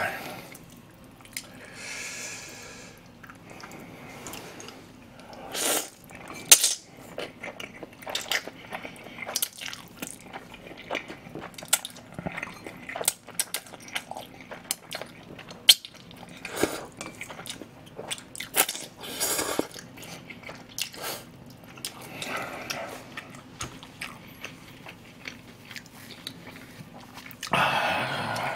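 A person eating spicy chewy instant noodles close to the microphone: wet chewing with many sharp smacks and clicks, and several longer slurps of noodles.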